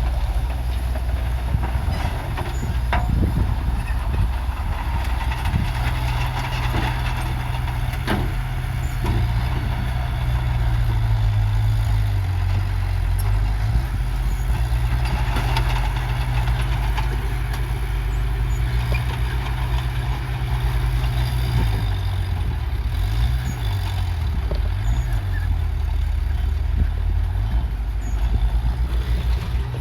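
Heavy diesel earthmoving machinery running under load, its engine pitch dipping and rising a few times. A few sharp metallic clanks come through, about 3 and 8 seconds in.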